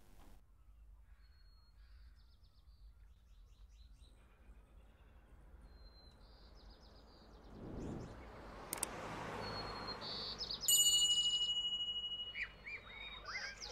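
Birdsong ambience: scattered high chirps and short trills, faint at first, with a rising rush of noise about eight seconds in. A loud, steady, high whistle-like tone is held for about a second near the end, followed by more chirping.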